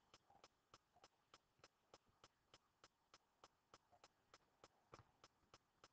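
Near silence with faint, evenly spaced ticks, about three a second.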